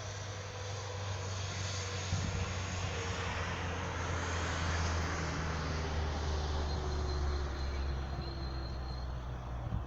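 Airplane flying over: a low engine drone that swells to its loudest about midway and then fades, its pitch slowly falling as it passes.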